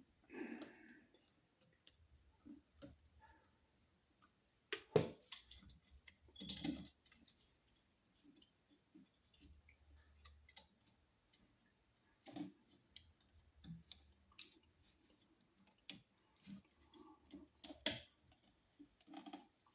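Faint, irregular clicks and small scrapes of hand tools and copper wire being worked on a wall receptacle's terminal screws, with a few louder clicks about five, six and a half and eighteen seconds in.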